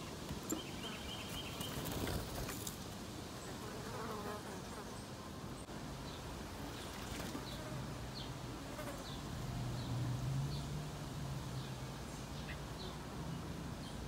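A flying insect buzzing close to the microphone, a steady low drone that comes in about six seconds in and swells around ten seconds. Faint short bird chirps and a few light knocks in the first couple of seconds sound alongside it.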